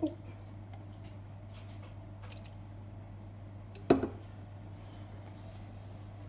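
Quiet kitchen room tone with a low steady hum, broken by one sharp utensil knock with a short ring about four seconds in, as the measuring spoon is taken away from the glass mixing bowl.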